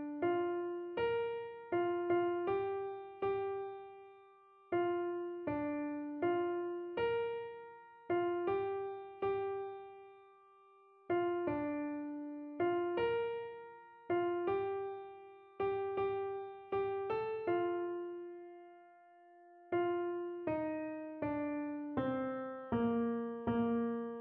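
A soprano melody line played one note at a time on a piano sound, at about 80 beats a minute, each note struck and then fading; a couple of longer held notes break the phrases.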